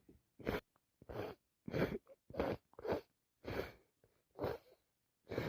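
A person with a cold breathing in quick, noisy, even breaths, about eight in a row, between sneezes.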